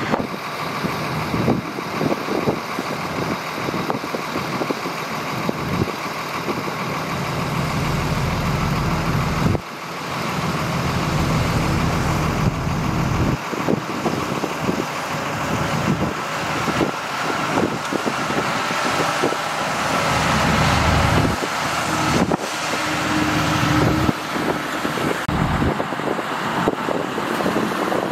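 Heavy diesel earthmoving machinery working, its engine note swelling and easing under load, with frequent metallic clanks and knocks throughout.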